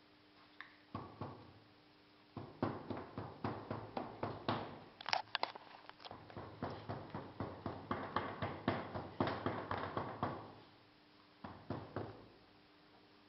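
Hand rammer tamping moulding sand into a casting flask: a run of short, dull knocks, a few a second, after a couple of single strokes near the start, thinning out near the end.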